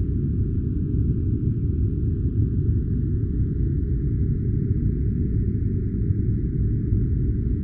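Steady, unchanging low rumbling noise of a sleep-sound noise track, filtered so that almost nothing sounds above the low range, with only a faint hiss higher up.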